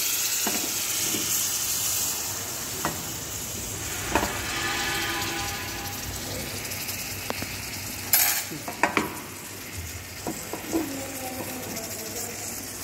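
Caramelised butter, sugar and orange sauce sizzling around crêpes in a frying pan, the sizzle slowly dying down. A few sharp clicks and knocks of metal on the pan come through it, the loudest about eight seconds in.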